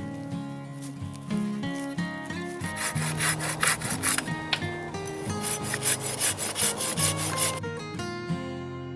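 A saw cutting through wood in quick, even back-and-forth strokes, about two to three a second, starting about three seconds in and stopping a little before the end, over background music.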